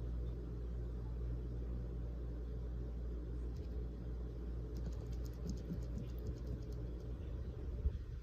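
A sleeping child smacking her lips: a short run of small clicks about five to six and a half seconds in, over a steady low room hum, with a soft thump near the end.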